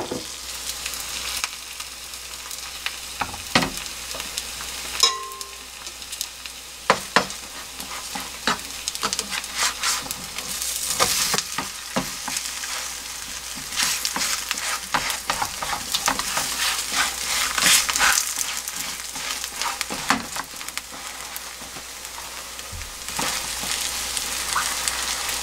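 Chive pancake (buchujeon) sizzling in oil in a nonstick frying pan, its second side cooking in freshly added oil after the flip. A spatula scrapes and taps against the pan now and then, giving short sharp clicks over the steady sizzle.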